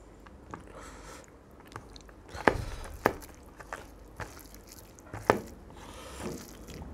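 Close-up eating sounds: fingers mixing and squishing rice with fish curry on a plate while chewing, under a soft run of small moist clicks. A few sharp clicks stand out, the loudest about two and a half and five seconds in.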